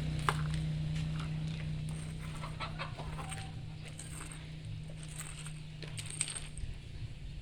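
Chickens clucking now and then over a steady low hum.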